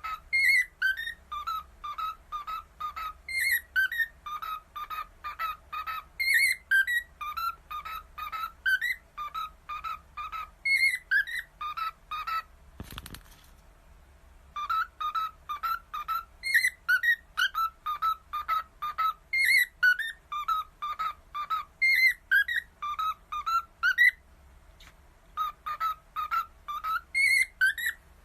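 A pet parrot whistling a short tune over and over: quick whistled notes, some sliding upward, in a phrase that repeats every few seconds. It breaks off briefly with a single click about halfway through, and pauses again near the end.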